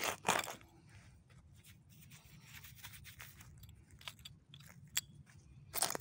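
Digging by hand in soil full of broken glass and china: a couple of loud gritty scrapes at the start, small scratches and clicks of shards through the middle, and another scrape near the end.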